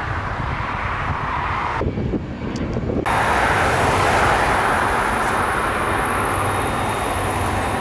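Airbus A380 four-engine turbofan jet noise, a steady rumbling roar. About three seconds in it cuts abruptly to a louder, steady engine roar as the airliner taxis at low power.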